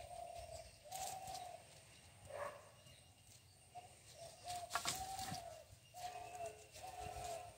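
A dove cooing in the background: a series of short, low coos of even pitch, about half a second each, several in a row. Occasional brief rustles or clicks are heard.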